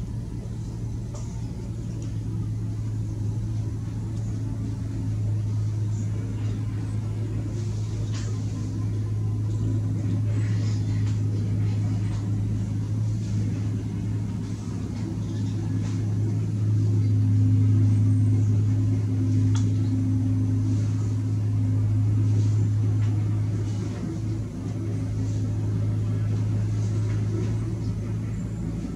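A steady low mechanical hum, growing a little louder about two-thirds of the way through.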